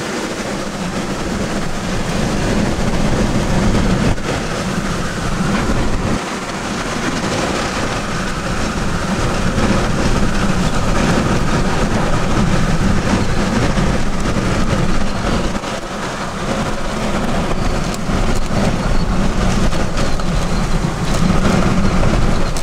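Loud, continuous roar of tornado wind and driving rain around the storm-chase vehicle, with the funnel passing within a couple hundred yards.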